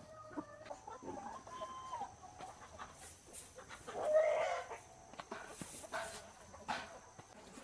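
Chickens clucking, with one louder call about four seconds in and a few sharp clicks between the calls.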